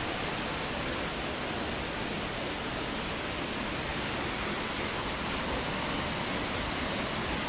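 Waterfall rushing close by: a steady, loud roar of falling water with a strong hiss.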